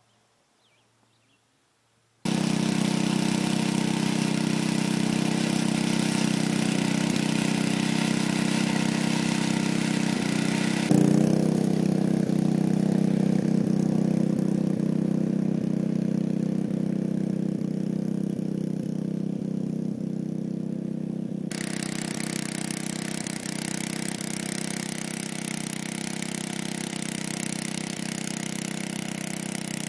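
Rototiller's small gasoline engine running steadily while tilling soil. It cuts in abruptly a couple of seconds in after near silence, and its sound shifts twice.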